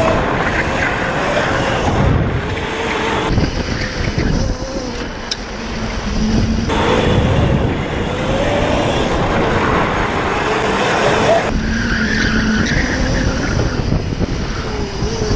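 Electric drift kart running hard, its electric motor whining and rising and falling in pitch with speed, over the noise of tires skidding through slides.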